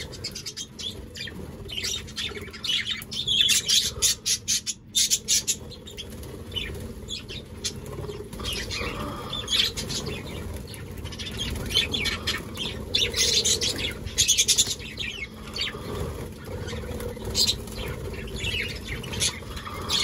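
A flock of budgerigars chattering in many short chirps and squawks, with wings fluttering as birds fly to and from a hand holding greens.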